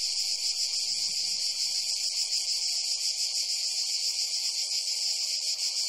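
Steady, high-pitched chorus of insects singing without a break, with a fainter lower hum running beneath it.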